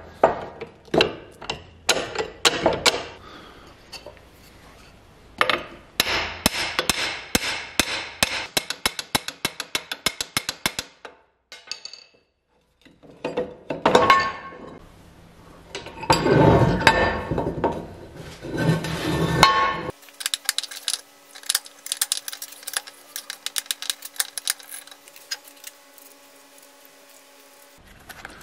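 Metal clanks and knocks of an old rusty bench vise being taken apart: the sliding jaw rattling and scraping as it is worked out of the body and set down on the steel workbench. The knocks come in uneven clusters with a short lull partway through, and the last part turns to lighter, quicker ticking over a faint steady hum.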